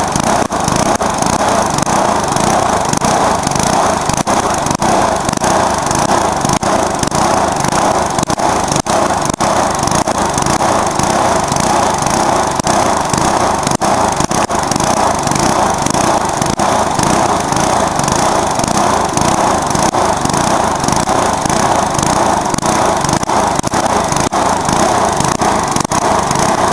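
Briggs & Stratton lawnmower engine running loudly and steadily with a broken exhaust.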